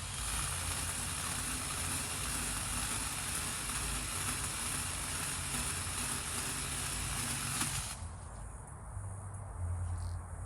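Battery-powered mini chainsaw cutting through wood, a steady hissing buzz with a faint motor tone, cutting off suddenly about eight seconds in.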